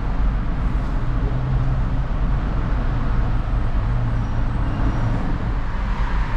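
Steady low rumble of a motor vehicle's engine and road noise, with a low hum that comes and goes.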